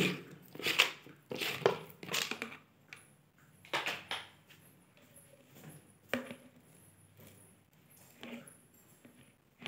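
Scattered clicks and knocks of hard plastic being handled as the pump head of a small hand-pump pressure sprayer is unscrewed from its bottle.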